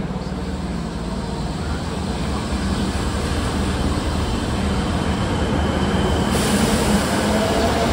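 Fukuoka City Subway Hakozaki Line train pulling out of an underground station, wheel and rail noise growing steadily louder as it picks up speed. Near the end the traction motors' whine rises in pitch.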